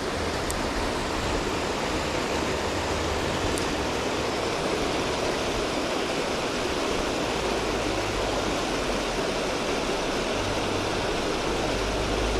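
Steady rush of water pouring over and below a river dam.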